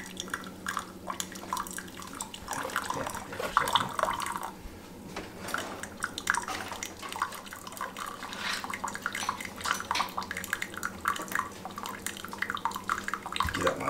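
Keurig K-Slim single-serve brewer dispensing hot water into a ceramic mug: an irregular splashing and dripping stream into the half-full cup, with a steady low hum under it. It is the first cleaning brew, so the water runs without a pod.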